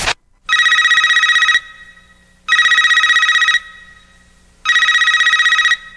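Telephone ringing three times with a high, rapidly warbling electronic ring. Each ring lasts about a second, with about a second of quiet between rings.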